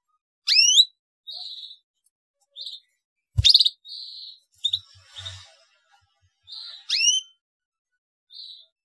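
Canary chirping: two loud, quickly rising 'cuit' calls, one near the start and one about seven seconds in, with short softer chirps between them. A single sharp knock sounds about three and a half seconds in.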